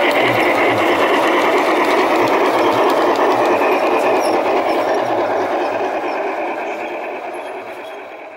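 1:22.5-scale model steam locomotive running along its track, giving a steady fast whirring rattle from its motor, gears and wheels on the rails. The sound fades away over the last couple of seconds.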